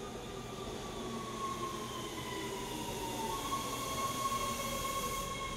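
Metro B Line subway train approaching through the tunnel into the station: a rumble that slowly grows louder, with a high whine that slides slowly down in pitch and then holds steady as the train slows.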